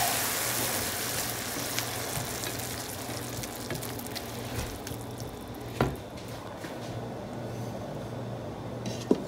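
Spinach sizzling in a non-stick pan just after the burner is switched off, the sizzle dying away over the first five seconds or so. A single knock about six seconds in, over a faint steady low hum.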